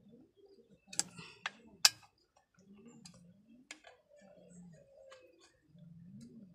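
A few sharp clicks and taps of hard parts being handled and fitted on a partly dismantled chainsaw, the loudest about two seconds in and another near four seconds. A faint low murmur lies underneath.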